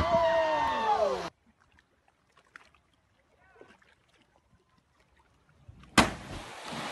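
Body hitting the water in a botched dive, with several onlookers crying out together in a falling "ooh" over the spray, cut off suddenly after about a second. Near silence follows, then about six seconds in a second heavy splash as a jumper slams into the water, followed by a steady rush of noise.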